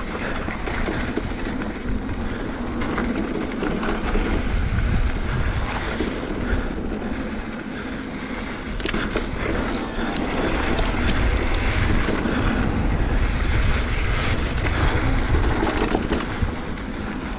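Electric mountain bike riding fast down a dry dirt singletrack: knobby tyres rumbling over the packed dirt, with the bike rattling over bumps in a steady clatter of small knocks.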